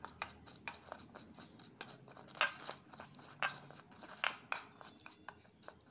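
Metal spoon stirring soaked, drained rice grains with ghee in a stainless steel bowl: irregular scrapes and clicks of the spoon against the bowl, several a second.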